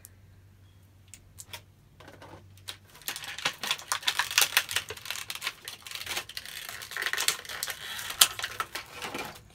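Tissue paper rustling and crinkling as hands dig through it, starting about three seconds in, a dense run of crackles and small clicks.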